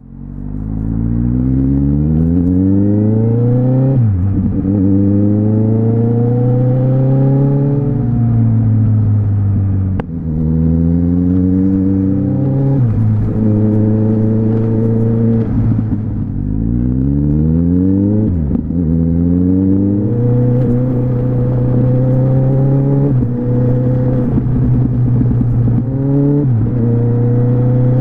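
2010 Kawasaki Z1000 inline-four running through an aftermarket Yoshimura carbon-fibre 4-into-1 exhaust, accelerating hard through the gears: the pitch climbs and drops sharply at each upshift, several times over. In the last third it settles into a steady cruise with small dips in pitch.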